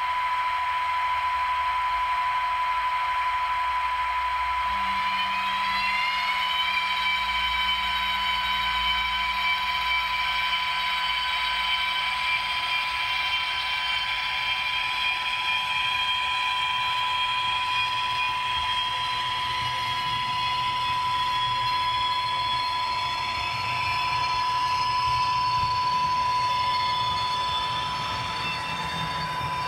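Electric-locomotive running sound from an H0 model train's sound decoder: a steady high tone throughout, with an electric whine that rises about five seconds in and then holds.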